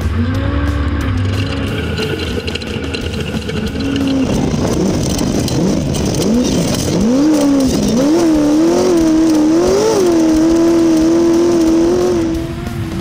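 Desert race car's engine revving up and down in quick swoops, then held high and steady at full throttle for a few seconds before easing off near the end.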